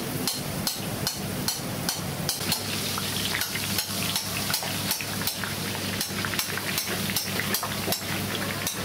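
Gram-flour batter dripping through a perforated ladle into a kadai of hot oil, the boondi sizzling as it fries. A steady knocking runs through it about two to three times a second, and the sizzle grows louder from about two and a half seconds in.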